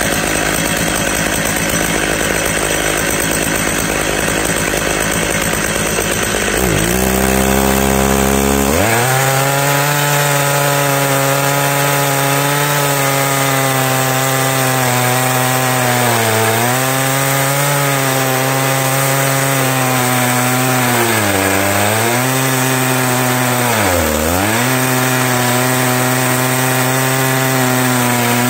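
Stihl MS880 two-stroke chainsaw on an Alaskan chainsaw mill running at high revs while ripping through a beech log. The first several seconds are a rougher cutting noise with no clear engine note. After that the engine's steady note comes through, and its revs briefly dip three times as the chain is loaded in the cut.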